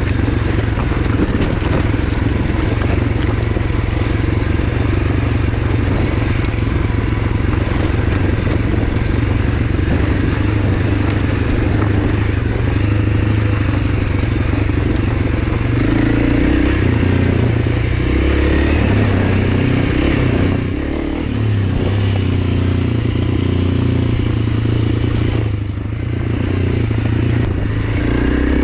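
Honda CRF300L's single-cylinder four-stroke engine running steadily under way off-road. The throttle eases off briefly twice, about two-thirds of the way through and again a few seconds later.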